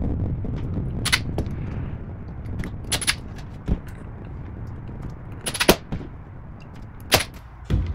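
Sharp clicks and knocks of plastic foosball parts, a player figure and white stoppers, being handled and turned on a steel rod: about four louder clicks and a few fainter ones over a low background rumble.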